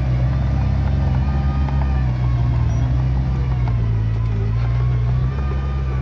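Diesel engine of a piece of earthmoving equipment running steadily under power, a loud low engine note with only slight changes in pitch.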